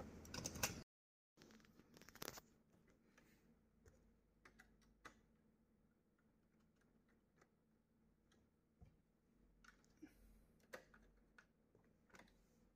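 Rustling handling noise of the disassembled laser printer's parts that cuts off about a second in, then near silence broken by faint, scattered clicks and taps of hands and a screwdriver on the printer's plastic and metal frame.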